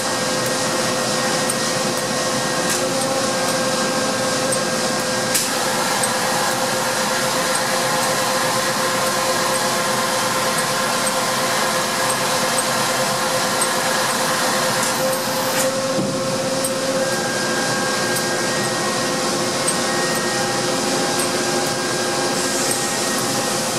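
Mori Seiki SL8-C CNC slant-bed lathe running: a steady mechanical hum and hiss with several whining tones that shift slightly in pitch as the tool turret and carriage move. A sharp click about five seconds in, and a brief burst of noise ending in a knock about sixteen seconds in.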